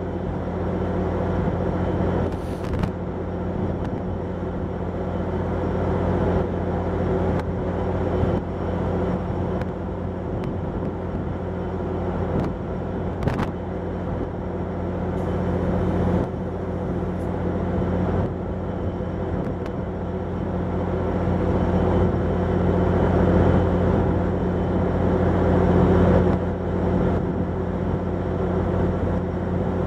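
Amtrak Superliner bilevel passenger train standing at a station platform, its equipment running with a steady low hum; a few brief clicks come through it.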